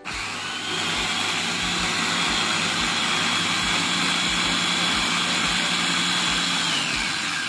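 Electric mini food chopper running steadily, its blades whirring through onion, garlic and candlenuts with a little oil to grind them into a smooth spice paste. A high whine in the motor drops in pitch near the end.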